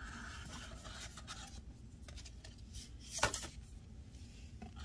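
Faint rustling and scraping of a thin printed card insert being slid out of a diorama backdrop's screen frame by hand, with one sharp click about three seconds in.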